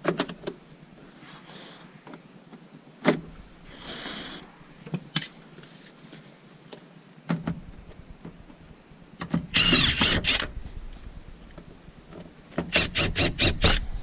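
Car interior trim and headliner board being worked loose by hand: a few sharp clicks and knocks, a loud scraping rustle about ten seconds in, then a quick run of clicks near the end.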